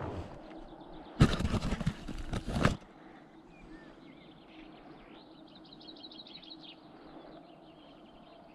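A burst of close rustling noise, about a second and a half long, starting about a second in; afterwards small birds chirp in the background, with a rapid trill near the middle.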